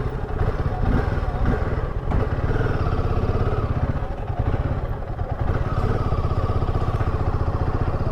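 Royal Enfield Himalayan 450's single-cylinder engine running steadily while the motorcycle is ridden, a fast even pulsing throughout.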